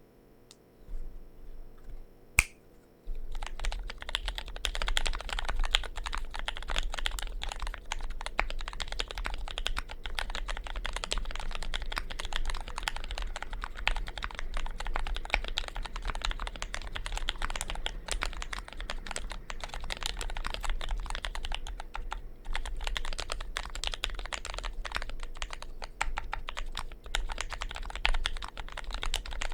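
Steady, fast typing on a Vortex POK3R mechanical keyboard with lubed Gateron Milk-housing Red linear switches and ePBT keycaps. A single sharp click comes about two seconds in, and continuous typing starts about a second later.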